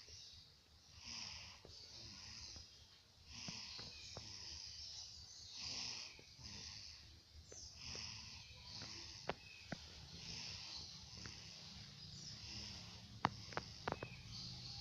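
A sleeping baby snoring, one hissing breath about every two seconds. A few sharp clicks near the end.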